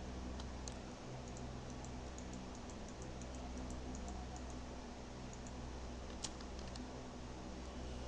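Faint computer keyboard typing: a run of light key clicks, pausing and resuming, with one louder click about six seconds in, over a steady low hum.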